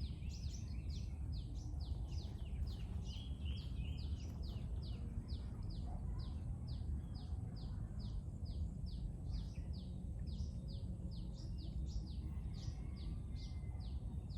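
A bird calling a fast, even series of short, high chirps, each dropping sharply in pitch, about three a second, over a steady low rumble.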